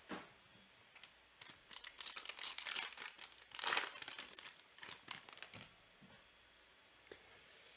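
Foil pack of football trading cards being torn open and crinkled, in irregular bursts lasting about four seconds and starting about a second in.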